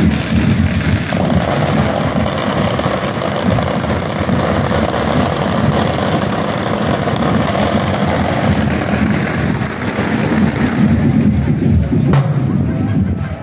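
Band music with drumming from a passing street procession, over dense crowd and heavy-rain noise.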